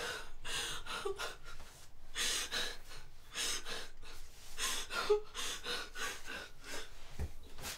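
A young woman gasping and breathing hard, a breath about every second.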